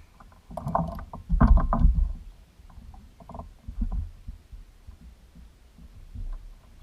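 Dull knocks and thumps in a small boat: two louder clusters in the first two seconds, then fainter scattered bumps.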